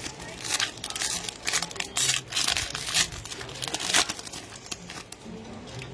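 Trading-card pack wrapper being torn open and crinkled: a run of short crackling rips, the loudest about four seconds in.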